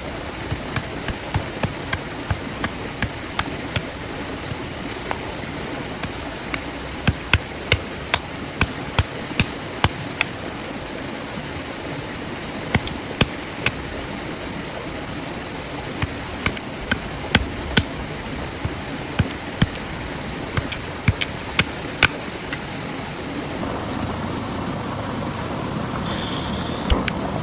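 Heavy rain hissing steadily on a camping tarp and tent, with big drops striking the plastic in loud, irregular knocks. The downpour grows a little heavier near the end.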